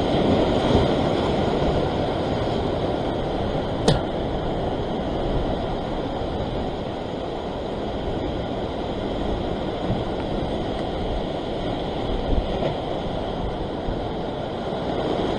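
Surf washing and breaking against a rock ledge: a steady rushing noise, with one sharp click about four seconds in.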